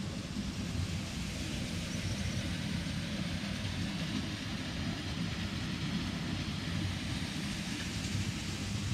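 Wind blowing over the microphone: a steady low, fluttering rumble with a faint hiss above it.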